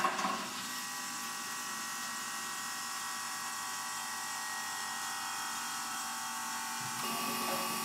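Water pump of a Londinium R lever espresso machine running steadily as it fills the empty boiler for the first time. A steady electric hum whose tone shifts a little about seven seconds in.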